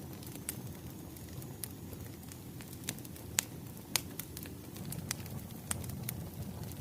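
Wood fire crackling: irregular sharp pops and snaps over a low, steady rush, with two louder pops a little past the middle.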